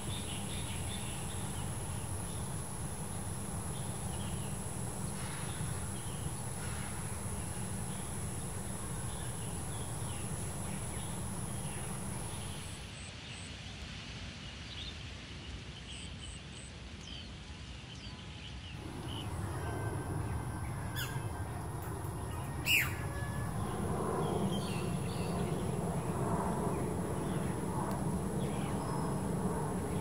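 Outdoor ambience with scattered short bird chirps over a steady low rumble and a thin, steady high-pitched tone. The high tone drops out for several seconds near the middle. About 23 seconds in, a single sharp, falling whistle-like call stands out as the loudest sound.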